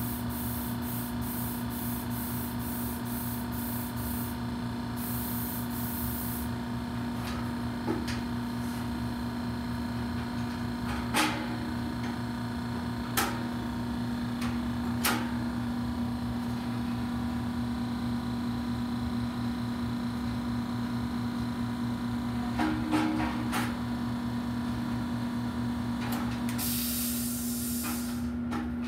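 Electrostatic paint spray gun hissing in short spurts at the start, again around five seconds in, and in a longer burst near the end, over a steady machine hum. A few sharp knocks come in the pause between passes.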